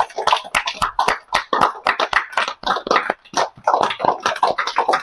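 Hand clapping from a small group, a quick, uneven run of sharp claps.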